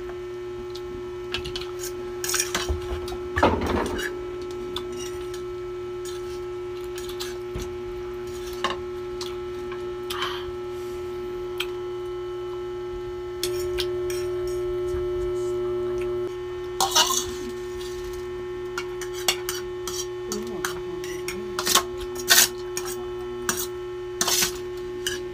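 Forks and spoons clinking and scraping against plates and a metal serving tray during a meal, in scattered short clicks, over a steady hum.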